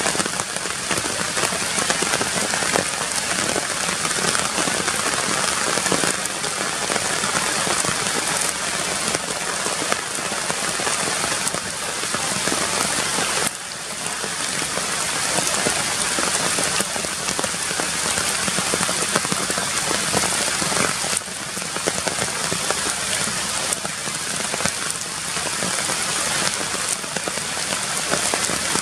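Steady heavy rain falling on the leaves of a forest canopy, a dense, even hiss of drops.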